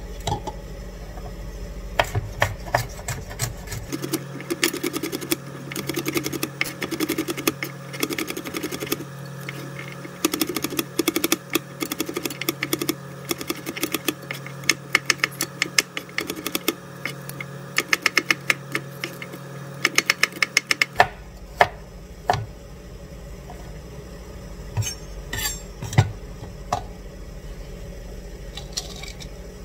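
Kitchen knife chopping garlic cloves on a cutting board: a long run of quick, sharp taps, followed near the end by a few scattered clicks and knocks.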